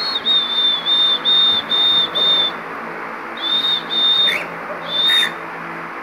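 Lutino cockatiel whistling: a quick run of short, level, high-pitched notes, then a pause of about a second and three more. A steady hiss runs underneath.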